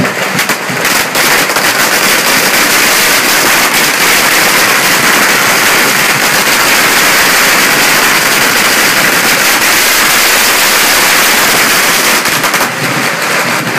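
A long string of firecrackers going off in a loud, unbroken run of rapid sharp bangs and crackles, thinning slightly near the end.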